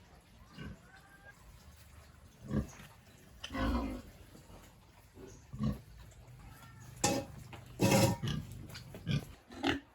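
Pigs grunting in a string of short, separate calls, the loudest coming about seven and eight seconds in.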